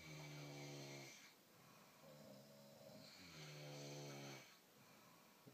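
Faint snoring: two long snores, each about a second, with a steady buzzing pitch, about three seconds apart, and a quieter breath between them.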